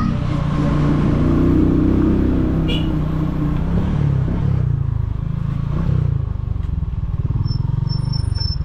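Motorcycle engine running and easing off as the bike slows almost to a stop, its note dropping to a low pulsing. A thin high squeal comes in near the end.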